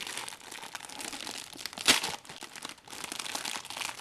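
Packaging bag crinkling as it is handled and ripped open, with one sharp rip about two seconds in.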